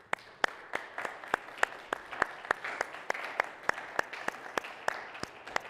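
Congregation applauding. One person's steady clapping close to the microphone, about three claps a second, stands out above the general applause.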